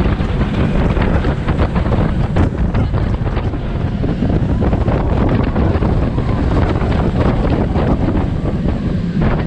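Heavy wind buffeting the microphone, over the low rumble of a steel roller coaster train running at speed along its track, with scattered light clicks and rattles.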